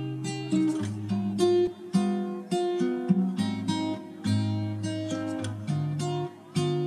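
Background music on acoustic guitar, with a string of plucked and strummed notes.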